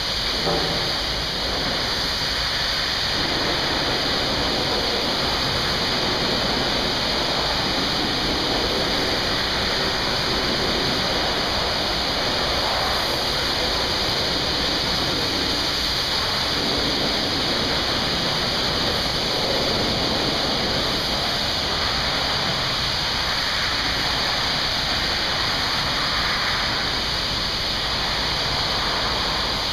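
High-pressure water spray hitting a truck during a wash, a steady rushing spray without a break.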